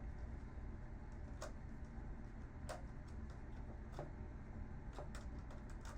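Sparse, faint clicks of a screwdriver and small screws being handled on a monitor's casing during disassembly, about one click every second or so, over a low steady background hum.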